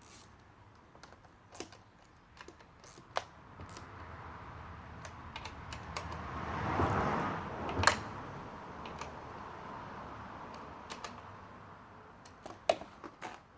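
Scattered light clicks and taps of handling, with a rustling swell that builds to a peak about seven seconds in, where a sharp click lands, then fades away. No engine is running.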